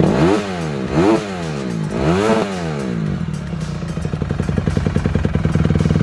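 2013 Honda CRF250R four-stroke single-cylinder dirt bike engine with an FMF aftermarket exhaust, revved three times in quick succession, each rev rising and falling in pitch. It then settles back to a steady idle.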